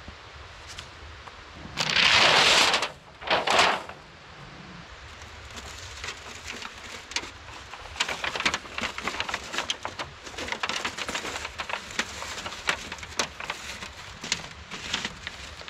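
Two loud rushing noises about two and three and a half seconds in, then a long run of irregular crackling and scraping clicks as a long wooden pole is worked by hand in snow.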